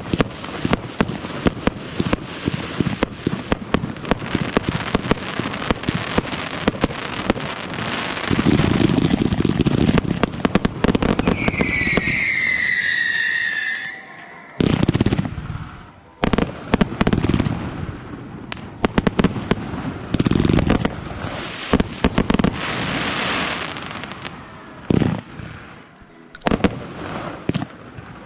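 Fireworks display: a dense rapid crackle of many small bursts, a few falling whistles near the middle, then a sudden loud bang and a series of separate booming shell bursts.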